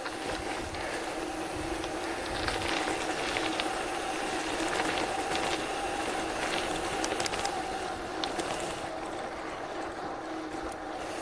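Loaded bicycle rolling along the road: a steady hum of tyres and drivetrain over rushing noise, with scattered light clicks and rattles.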